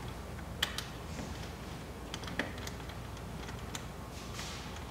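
Small, irregular clicks and ticks from a lock nut and washer being threaded and turned by hand onto a rooftop tent's mounting bolt.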